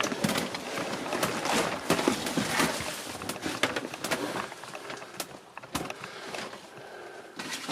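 Irregular knocks, crunches and rustles of someone picking their way on foot through clutter and debris, thinning out after about six seconds.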